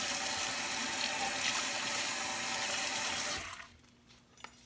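Kitchen faucet running into the sink while utensils are rinsed under it, a steady splashing hiss. The water is shut off abruptly about three and a half seconds in, and a small click follows.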